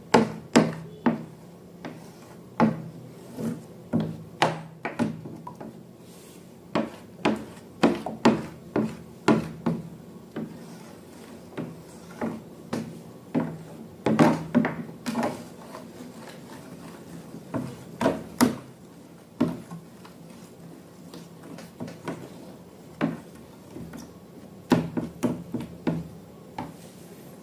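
Irregular light knocks and rubbing from objects being handled, one or two sharp knocks a second, over a faint low steady hum.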